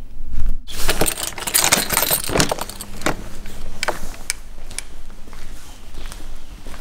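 Footsteps on a concrete floor with irregular jingling and clicking, starting under a second in.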